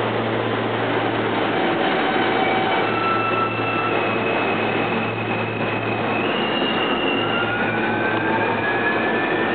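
R160B Alstom subway trains moving through the station, one pulling in while the other pulls out: steady rolling rail noise with high thin whines and wheel squeal. Over the last few seconds a whine rises steadily in pitch as a train gathers speed.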